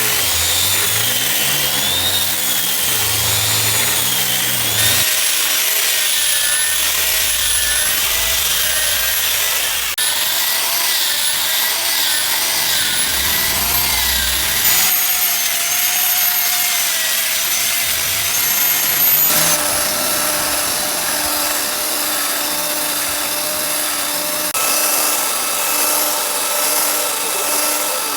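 A power tool running against a thick hardwood slab, its whine wavering up and down in pitch as the load changes. The sound shifts abruptly every few seconds.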